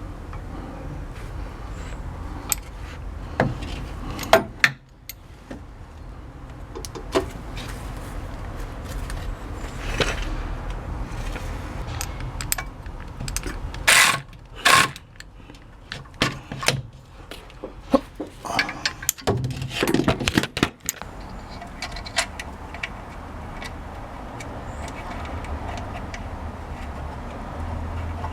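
Metal tools and parts clinking, knocking and scraping in scattered bursts over a steady low rumble.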